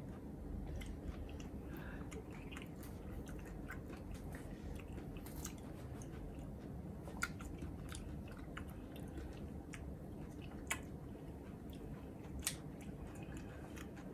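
A person chewing raw offal, with small wet mouth clicks over a low steady hum. Three sharper clicks come in the second half.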